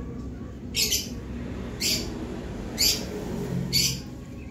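A bird calling: short harsh chirps repeated about once a second, four times, over a low steady background.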